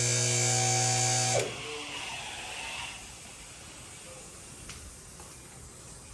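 Vehicle lift's electric hydraulic pump motor running with a steady buzzing hum, cutting off suddenly about a second and a half in. Fainter background noise with a single faint click follows.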